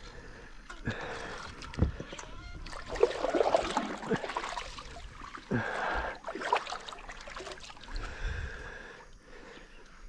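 Water sloshing and splashing around a fishing kayak as it is worked about on the river, with a few dull knocks.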